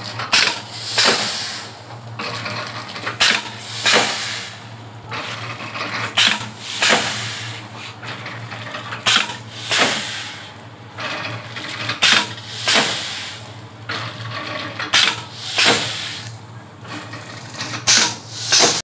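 Vertical form-fill-seal sugar packing machine running. About every three seconds the pneumatic sealing jaws cycle, giving two sharp hissing bursts about a second apart, over a steady low machine hum.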